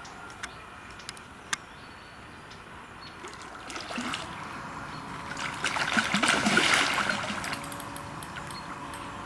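A hooked carp thrashing and splashing at the water's surface close to the bank as it is played toward the landing net; the splashing builds about four seconds in, is loudest a couple of seconds later, then fades. A few sharp clicks come before it.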